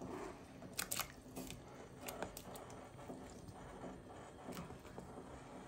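Faint, scattered small plops and clicks as pieces of sliced sausage are slipped a few at a time into a pot of hot broth.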